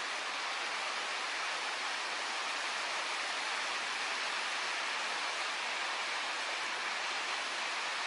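Steady rushing noise, even throughout, with no distinct sounds standing out from it.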